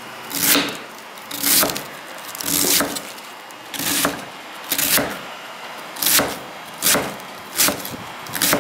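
Chef's knife slicing thin shreds from a cabbage and striking a round wooden chopping board, about one cut a second, the cuts coming a little faster near the end.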